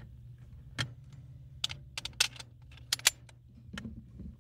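A steady low hum with about eight irregular sharp clicks and ticks scattered through it.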